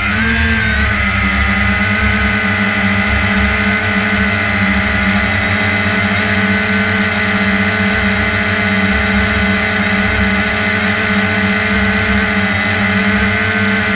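A drone's motors and propellers running with a steady whine, heard from on board, over a low rush of wind on the microphone. The pitch wavers briefly about half a second in, then holds steady.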